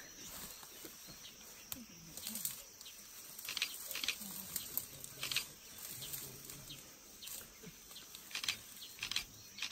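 Dry bracken and undergrowth crackling and rustling as it is trampled, in irregular sharp snaps, with a cluster about three and a half to four seconds in.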